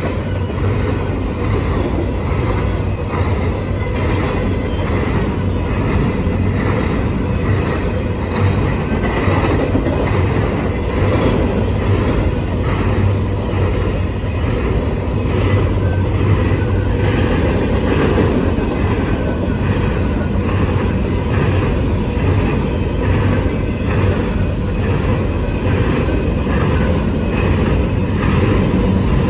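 Empty covered grain hopper cars of a freight train rolling past: a steady rumble of steel wheels on rail, with a regular clickety-clack as the wheels pass over the rail joints.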